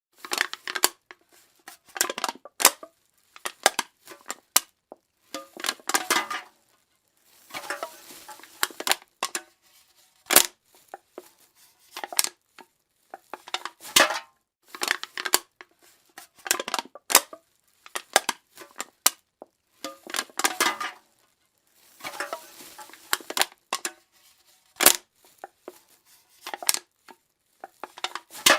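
Aluminium drink can being crushed over and over: bouts of crinkling, crackling metal broken by sharp clicks and short pauses.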